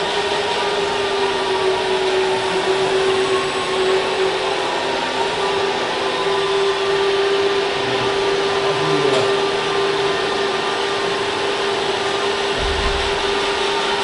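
Hydraulic pump of an RC model Liebherr 956 crawler excavator running with a steady, high whine while the arm lifts and the upper body swings. A short low bump near the end.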